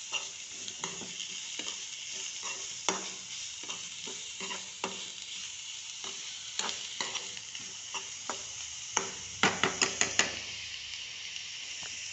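Shredded cabbage and green chilli sizzling in hot oil in a frying pan as they are stirred, with irregular scrapes and clicks of the stirring utensil against the pan. Near the end there is a quick run of about five sharp knocks on the pan.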